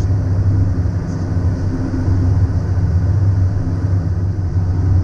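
Steady low rumble of a Cessna Citation CJ3 in flight, heard inside the cockpit: airflow and twin-turbofan engine noise with a faint steady hum above it.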